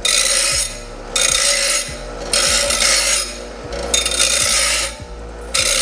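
Hand file rasping against a part in five slow strokes, each lasting most of a second with short pauses between, taking a sliver off so the part will fit.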